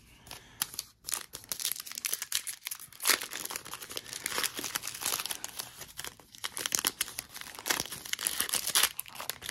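A foil trading-card pack wrapper being torn open and crinkled by hand: a run of close-packed crackles and rips starting about a second in.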